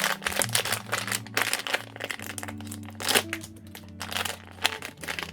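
Blind-box packaging crinkling and tearing as it is opened by hand, an uneven run of crackles and rustles.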